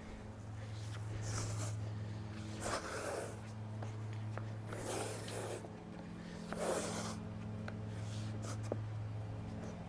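Old headliner fabric being peeled off the headliner board: four or five rasping rips, about one every one and a half seconds, over a steady low hum.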